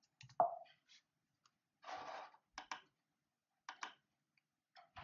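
Sparse light clicks and taps, the loudest just under half a second in, with a short soft hiss about two seconds in.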